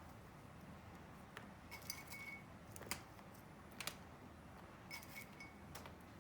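Faint, scattered light clicks and ticks from handling a bag or container of walnuts, about half a dozen over several seconds, with low room hum beneath.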